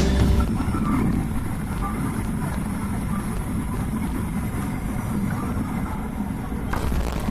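Airliner cabin noise: a steady low rumble of the aircraft heard from inside the passenger cabin.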